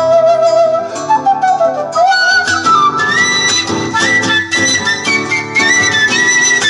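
Live duet of a flute melody over strummed acoustic guitar; the flute line climbs in pitch partway through and holds high notes toward the end.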